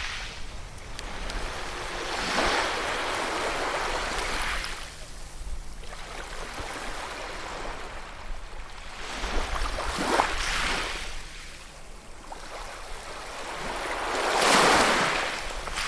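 Ocean surf: waves breaking and washing in, rising and falling in swells every few seconds, with the loudest wave near the end.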